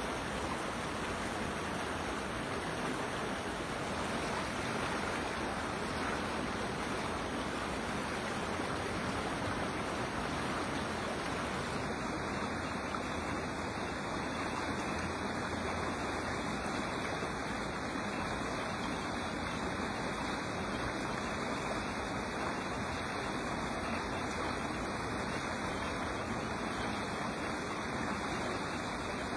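Creek water flowing, a steady, even rush with no breaks.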